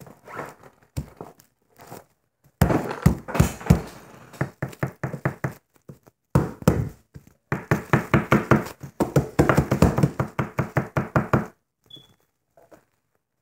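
Bubble wrap being pounded hard and fast: rapid runs of knocks and thumps, about five a second at their quickest, with crinkling of the plastic. The pounding stops about two seconds before the end.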